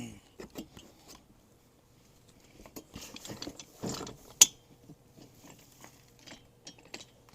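Metal parts of a newly assembled Gorilla dump cart rattling and clicking as it is moved and set down on the ground, with one sharp clank a little past four seconds in.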